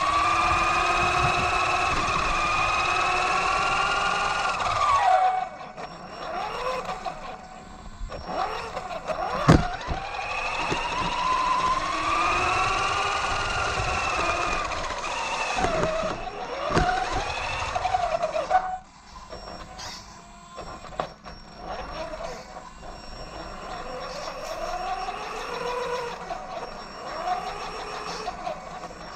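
Axial Yeti XL RC truck's electric motor and gear drivetrain whining, the pitch rising and falling again and again as the throttle is worked. A sharp knock comes about a third of the way in. The whine drops away to a quieter level twice, once early and again a little past halfway.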